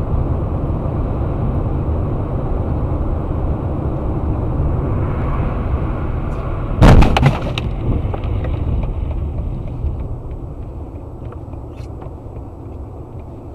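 A car driving on a snowy highway, heard from inside through its dashcam: a steady rumble of road and wind noise. About seven seconds in comes a sudden loud bang, the loudest sound here, and the rumble eases off over the last few seconds.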